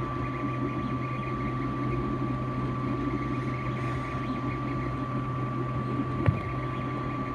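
3D printer running: a steady hum with a constant whine, a warbling higher tone during the first half that then fades, and a single sharp click about six seconds in.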